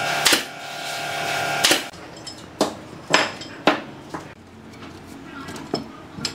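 Cordless drill motor running for just under two seconds, driving a screw into wooden formwork, then stopping. Four separate sharp knocks follow.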